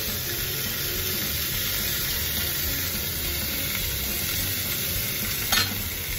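Chicken and vegetables sizzling on a hot cast-iron sizzler plate, a steady hiss; one brief sharp clink about five and a half seconds in.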